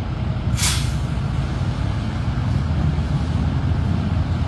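Heavy emergency vehicles, an ambulance and a fire truck among them, passing with a steady low engine rumble. About half a second in, a short sharp hiss of air brakes.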